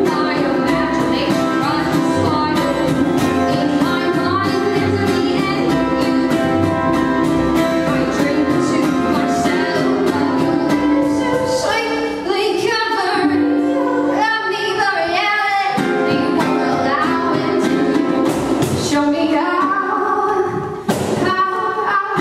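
Live acoustic band music: a woman singing over upright bass, acoustic guitar and a cajon keeping a steady beat.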